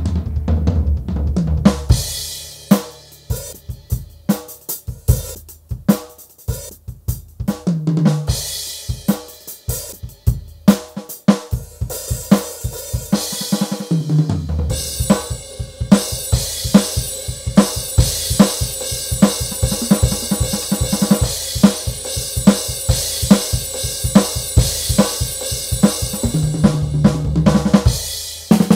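Donner Backbeat electronic drum kit played with sticks, heard as its module's drum sounds: scattered kick, snare and tom hits and fills, then, about halfway through, a steady fast groove under continuous cymbal.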